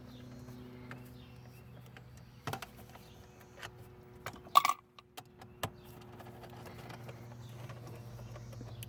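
Scattered clicks and knocks of tools and hands working loose plastic interior console trim, with one louder sharp clack about halfway through, over a low steady hum.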